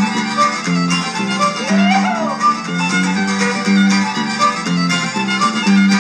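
Traditional fiddle playing a fast reel, with an accompaniment keeping a steady repeating bass pattern underneath.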